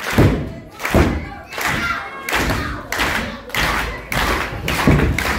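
A crowd clapping and stomping in unison, about three beats every two seconds, with voices over it.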